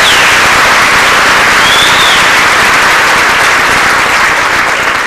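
Audience applauding after a dance performance, with a brief rising-and-falling whistle about two seconds in; the applause begins to die down near the end.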